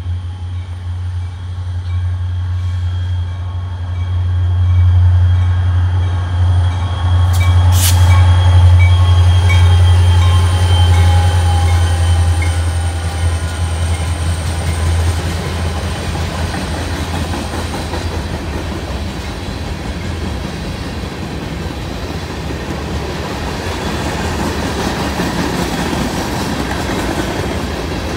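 CSX local freight train passing at close range. A deep, steady engine rumble dominates the first half, then fades, leaving the rolling noise of the freight cars' wheels on the rails.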